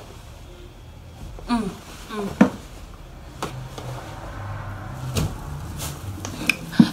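Denim jeans being handled and shaken out right against the microphone: cloth rustling and brushing, with several sharp knocks and bumps as the fabric and hands hit the phone.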